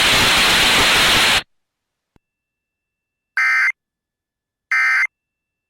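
Radio static hiss that cuts off about a second and a half in, then two short digital data bursts about a second apart, each lasting about a third of a second: the Emergency Alert System end-of-message (SAME EOM) code that closes a broadcast warning.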